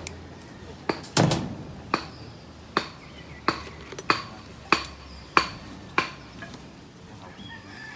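Hammer blows on a building site: about ten sharp strikes at a steady pace of roughly one and a half a second, some leaving a short ring. They stop about six seconds in.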